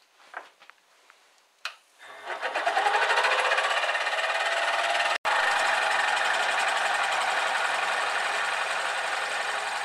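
Drill press starting up about two seconds in and running steadily, with an adjustable circle cutter (hole saw with one adjustable blade) cutting a round groove into a clamped block of wood. It breaks off for an instant about halfway.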